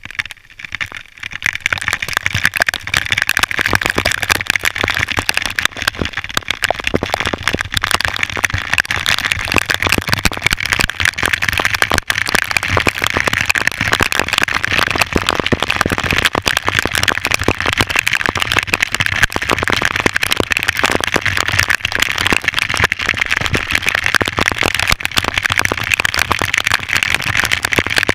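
Waterfall water rushing and splashing close by: a loud, steady rush that starts about a second in.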